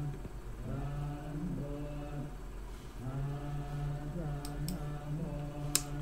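Low male voices chanting in long, evenly held notes, phrase after phrase, over a steady low hum. A few sharp clicks come near the end.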